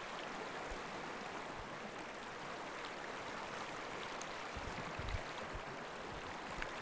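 Steady rush of river rapids, with a few faint low thumps about five seconds in.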